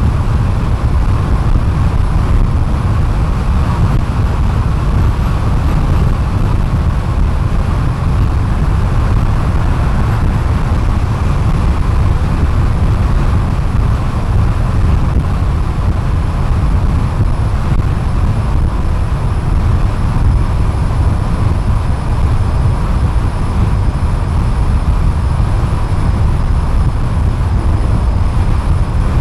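Steady low rumble of a car travelling at highway speed: road, tyre and engine noise that stays even throughout.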